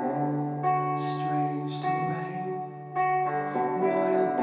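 Electric guitar played solo, ringing chords that sustain, with new chords struck just under a second in and again about three seconds in.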